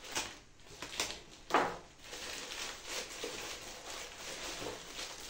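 Black plastic shipping bag rustling and crinkling as it is pulled open by hand, with two sharper crackles about a second in.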